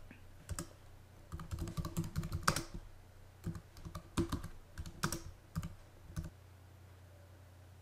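Typing on a computer keyboard: an uneven run of key clicks that stops about six seconds in.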